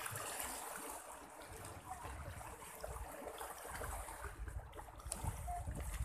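Shallow sea water lapping and trickling gently over a stony shore, with wind rumbling unevenly on the microphone.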